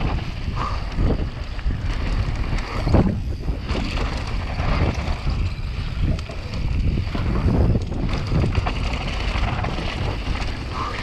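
Mountain bike descending a dry, dusty dirt trail at speed: wind rushing over the action camera's microphone, mixed with tyres on loose dirt and the bike rattling over bumps in irregular knocks.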